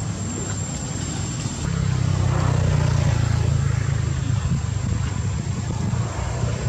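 A steady low engine hum, growing louder about two seconds in.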